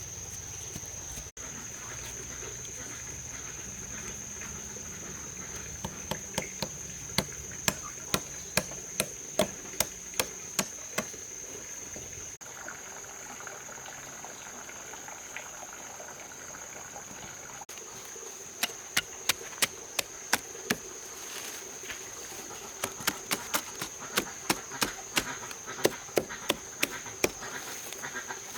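A tool striking wood in runs of sharp, regular blows, about two a second, typical of hammering or chopping while working the wood. Under it, insects drone steadily at a high pitch.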